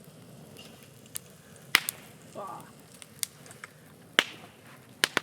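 Bonfire of old scrap timber crackling, with about six sharp pops at uneven intervals, the loudest near the middle and about four seconds in.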